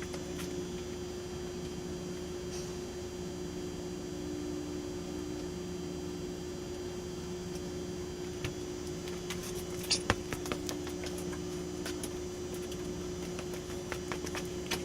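Steady low hum running throughout, with a few light clicks about ten seconds in.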